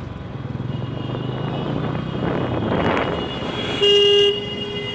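Road traffic at a standstill, with a motorcycle engine idling underneath. A swelling whoosh peaks about three seconds in, then a vehicle horn gives a short, loud blast about four seconds in, followed by a quieter held horn note.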